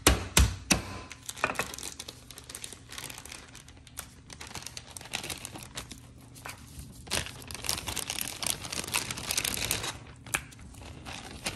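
A few last pounding thuds on the chicken thighs being flattened, then crinkling and rustling of plastic as it is handled and pulled at.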